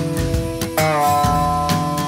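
Background music: a guitar tune over a steady beat, with one note sliding into a new pitch near the middle.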